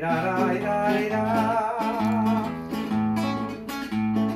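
Acoustic classical guitar playing a steady ranchera accompaniment of alternating bass notes and strums. A man's wavering held sung note carries over the first couple of seconds.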